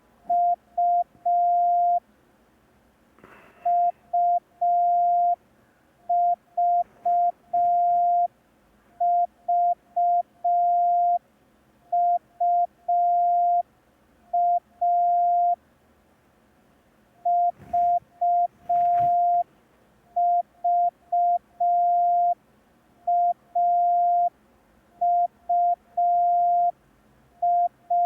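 Morse code sent as a steady single-pitch tone keyed into short and long pulses (dits and dahs) for the letters A, U and V, in five-letter groups with pauses between letters. It is a receiving practice exercise.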